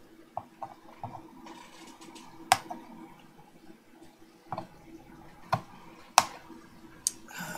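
Side cutters snipping off the excess leads of components on an amplifier circuit board: about five sharp, irregularly spaced snips over a faint steady hum.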